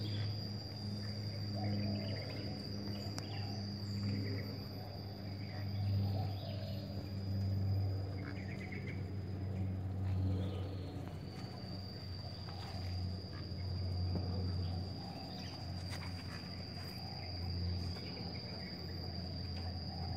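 Steady high-pitched insect buzzing that breaks off briefly about halfway through, over a low steady hum.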